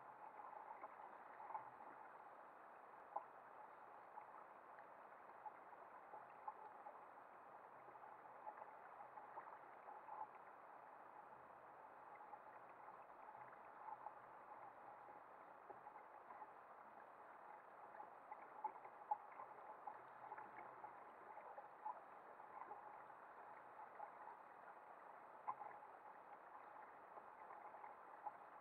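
Faint, muffled water lapping and gurgling against a fishing kayak's hull, with scattered small knocks.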